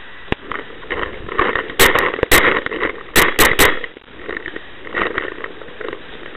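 Hurried footsteps crunching through dry leaf litter and brushing through undergrowth. Several sharp cracks cut through it, once early and then in two quick groups of three.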